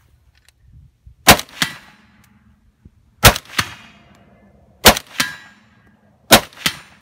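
Four suppressed shots from an AK-pattern rifle, each followed about a third of a second later by a second, weaker report. The rifle's adjustable gas piston is turned down to near the least gas at which it still cycles.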